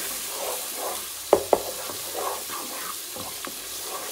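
Onion, ginger-garlic and ground spices frying in oil in a nonstick pot, sizzling steadily while a wooden spatula stirs and scrapes through them: the masala being fried down. Two sharp knocks come about a second and a half in.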